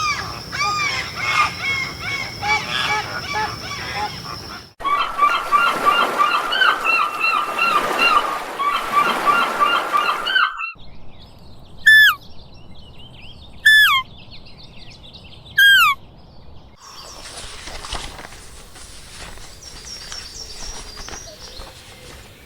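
Birds calling in a run of short clips: dense chirping and chattering, then three loud, sharply falling calls about two seconds apart, then fainter chirping.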